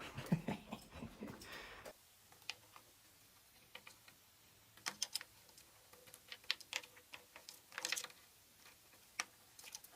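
Sparse, irregular light clicks and taps, a few sharper ones clustered in the middle.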